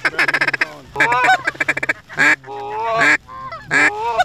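Goose calls imitating Canada geese: a fast run of clucks, then three honking calls that break and bend in pitch, the middle one drawn out longest. This is hunters calling to circling geese to bring them into the decoys.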